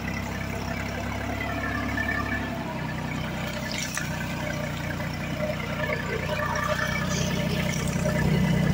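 Mini tractor's engine running steadily as it pulls a rotary tiller (rotavator) through the soil. The engine note shifts about two and a half seconds in and gets louder near the end.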